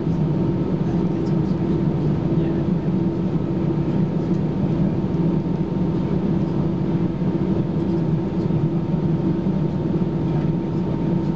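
Steady cabin drone inside an Airbus A320-214 taxiing, its CFM56 engines at idle, heard as a constant low hum over an even rumble.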